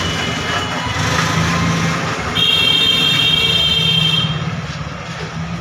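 A steady low engine hum. From a little under halfway through, a high steady tone with added hiss sounds for about two seconds, then stops.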